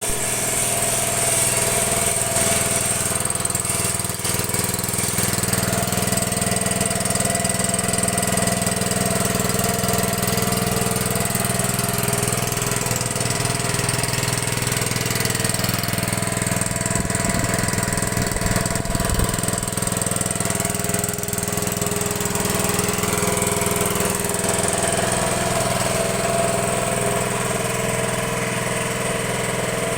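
Engine of a water well drilling machine running steadily at a constant speed.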